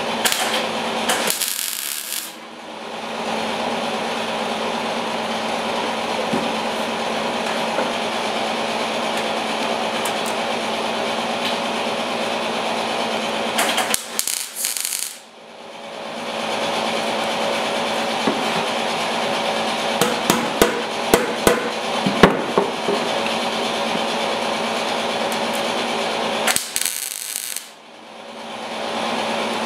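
MIG (wire-feed) welder laying a seam on the thin sheet steel of a Yamaha RS 100 fuel tank: a steady crackling buzz in long runs. It stops briefly about halfway through and again near the end, with a cluster of sharp spatter pops between the two stops.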